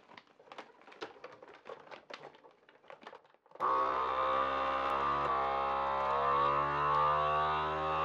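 Plastic vacuum-sealer bag crinkling as it is fed into a FoodSaver vacuum sealer. About three and a half seconds in, the sealer's vacuum pump starts suddenly and runs steadily, its pitch shifting slightly as it draws the air out of the bag around the cheese.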